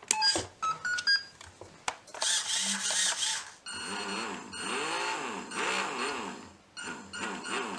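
A few short electronic beeps and clicks, then the RC hovercraft's small electric motor and propeller speeding up and slowing down again and again, its pitch rising and falling about once a second.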